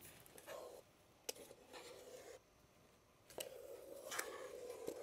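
Plastic spatula scraping soft-serve ice cream out of an ice cream maker's metal bowl: a few faint scraping strokes with light knocks, the longest near the end.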